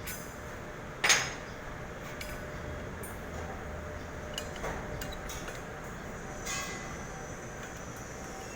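Metal clinks and taps from hands and tools working an oxygen cylinder valve during reassembly: one sharp ringing clank about a second in, then a few lighter clicks and taps.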